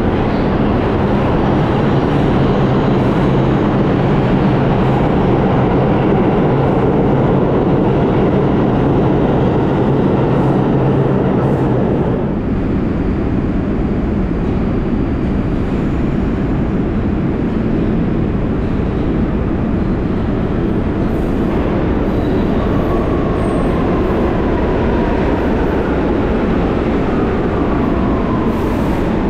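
Steady loud rumble of subway trains running through an underground station. Near the end a stainless-steel subway train pulls in on the near track, its motor whine falling in pitch as it brakes.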